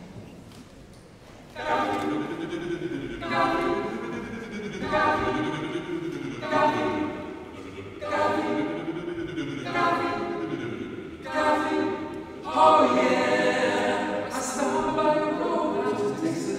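Male barbershop quartet singing a cappella in four-part close harmony, coming in about one and a half seconds in with short, punchy phrases that recur roughly every second and a half.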